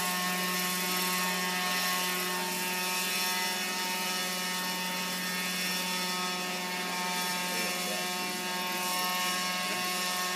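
Radio-controlled model helicopter in flight: a steady whine from its motor and rotor, holding one pitch.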